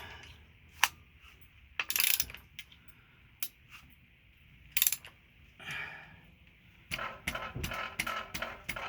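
Ratchet wrench clicking in scattered strokes, with a quicker run of clicks near the end, as a Mazda 3.0 V6 is turned over by hand to line up its timing marks after new timing chains.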